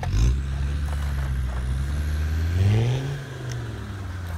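Motor of a radio-controlled Bruder Land Rover Defender pickup running steadily as the model drives through stream water, its pitch rising and then falling about two and a half seconds in.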